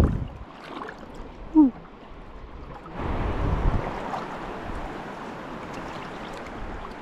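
Surf washing on the shore with wind on the microphone, swelling into a louder wash about three seconds in and slowly easing. A short squeak that falls in pitch cuts through about a second and a half in, the loudest moment.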